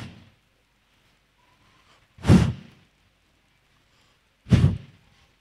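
A man blowing sharp puffs of breath into a handheld microphone, twice, a little over two seconds apart, each a short breathy gust with a low pop, miming a witch blowing powdered medicine off his palm.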